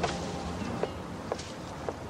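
Light footsteps, about four steps, over a low background.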